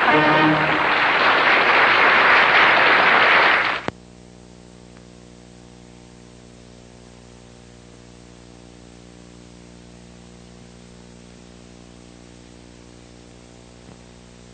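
The last notes of music merge into a loud, even rush of noise, which cuts off abruptly about four seconds in. Then only a steady electrical hum is left.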